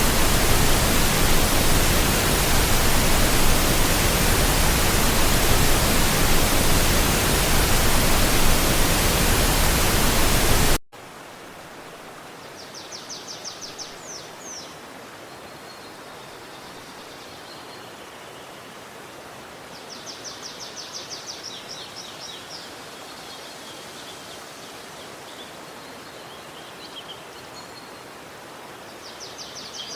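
Loud, even rush of water that cuts off abruptly about eleven seconds in, giving way to a quieter steady water hiss. Over it a songbird sings a short, fast, high trilled phrase three times, about eight seconds apart.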